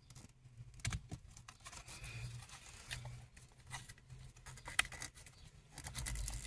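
Scattered plastic clicks and scrapes as the wiring connector is pushed and pulled off an HVAC blend door actuator and the actuator is worked free, with a sharper pair of clicks about a second in and again near the end.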